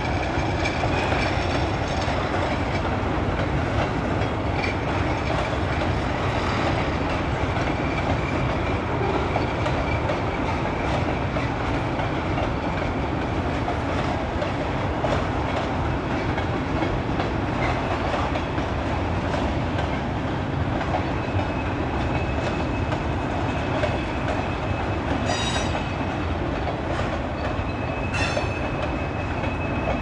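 A freight train's cars rolling steadily past, a continuous rumble of wheels on rail. About two-thirds of the way through, a thin high wheel squeal sets in and carries on, with two short sharper squeals near the end.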